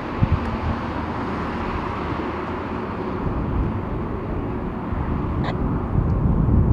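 Jet engines of a Boeing 747-400 freighter running steadily at low power with the aircraft standing still: an even rush of noise over an uneven low rumble.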